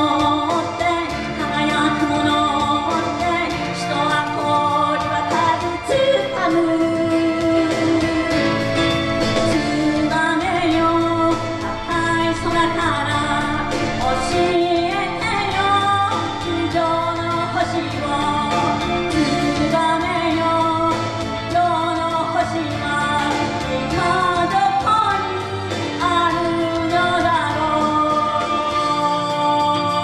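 A woman singing a Japanese pop song into a microphone over full instrumental backing music. Near the end the voice stops and held keyboard chords carry on.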